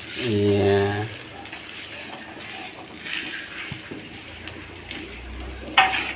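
Fried rice frying in a wok with a faint steady sizzle, while a metal spatula stirs it, scraping and clinking against the pan; one louder clink near the end.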